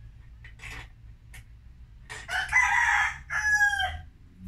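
A rooster crowing once: a harsh call of nearly two seconds starting a little past the two-second mark, dropping in pitch at its end. A few faint metal clinks from a wrench come before it.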